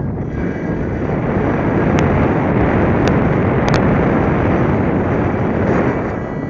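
Airflow rushing over the onboard camera of an unpowered F3K hand-launched glider in flight: a steady, loud wind noise on the microphone, swelling in the middle and easing toward the end as the glider slows to land. A few sharp clicks break through it.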